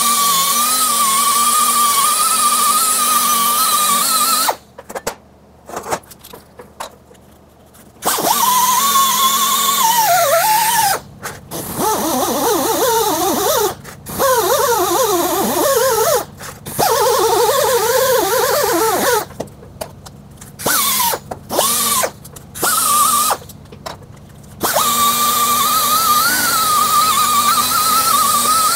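Right-angle pneumatic die grinder with a small abrasive disc polishing a TIG weld on a stainless steel pump plate: a high whine with air hiss. It is switched off and on again many times in the middle, its pitch dropping and wavering as the disc is pressed into the metal, and it runs steadily again near the end.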